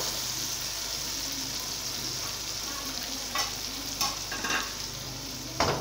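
Chopped onions, tomatoes and cumin sizzling steadily in hot ghee in a kadhai, with a few light clicks and one sharp knock near the end.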